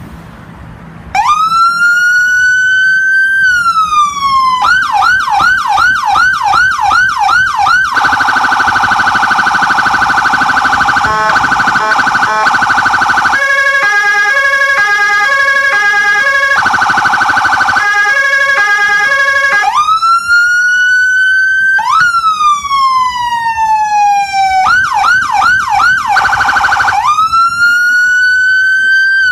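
AXIXTECH electronic emergency-vehicle siren running through its tones. It starts about a second in with a slow rising and falling wail, then a fast yelp, then a steady harsh tone, then quickly alternating high and low tones, and then the wail and yelp again.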